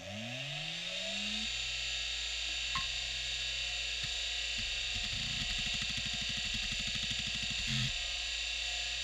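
Western Digital Caviar 2340 IDE hard drive powering up: the spindle motor's whine rises and settles to a steady high whine at full speed. A few single head clicks follow, then a rapid run of head-seek clicks for about three seconds.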